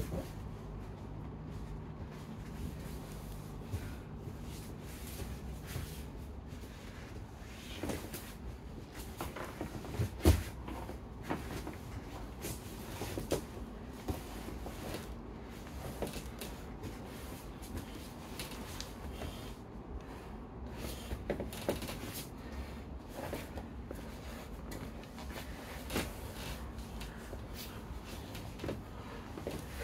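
Two grapplers rolling on vinyl-covered folding foam mats: scattered soft thumps and scuffs of bodies and limbs shifting on the mats, with one louder thump about ten seconds in.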